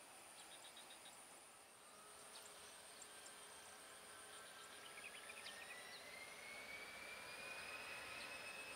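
Airbus A320-214's CFM56 jet engines heard faint and distant on the takeoff roll, their whine rising steadily in pitch from about two seconds in as the aircraft accelerates. A steady high buzz runs underneath.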